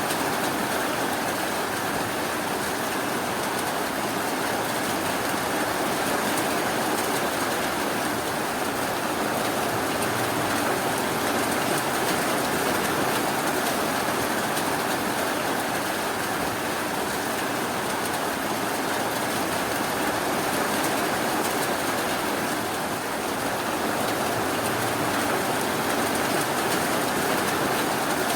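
Steady rain falling, a dense continuous hiss with no breaks or thunder.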